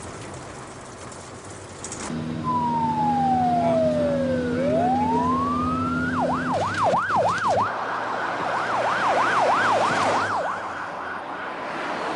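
Emergency-vehicle siren starting about two seconds in with a slow wail, falling then rising, and switching about six seconds in to a fast yelp of about four sweeps a second. Vehicle engine and road noise run underneath.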